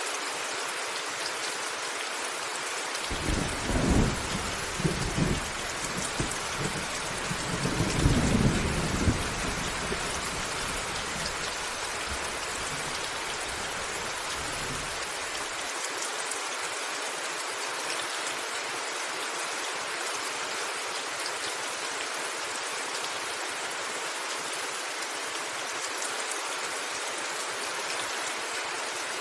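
Steady rain pattering on a rooftop, with a long rumble of thunder coming in a few seconds in, loudest in two swells, and dying away about halfway through.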